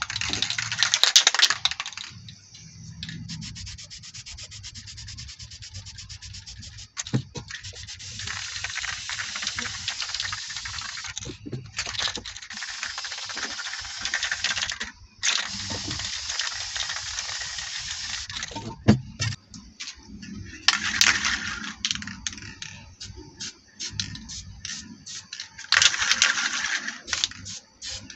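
Aerosol spray paint can hissing in several long bursts as black background paint is sprayed on. Between the bursts comes a fast rattle, the mixing ball inside the can being shaken.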